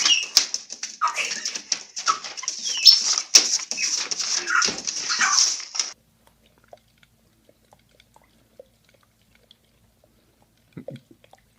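A dog vocalizing with rapid short calls and whines for about six seconds, cutting off suddenly; then near silence with a faint brief sound near the end.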